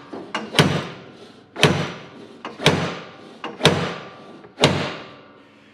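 Heavy hammer blows at a steady pace of about one a second, five strikes with lighter taps between, each ringing briefly.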